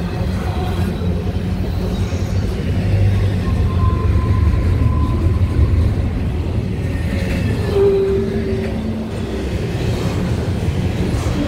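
Double-stack intermodal freight train's well cars rolling past close by: a steady low rumble of steel wheels on rail, with a couple of faint short whines over it, one about four seconds in and one near eight seconds.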